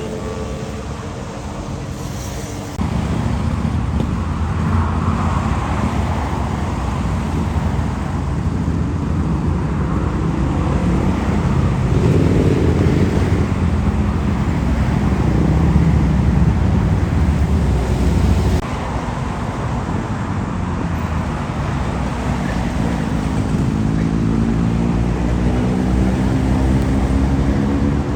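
Motorcycle engines running at low revs over steady road traffic noise, with abrupt changes in loudness twice. Near the end, one engine's pitch rises as it revs up.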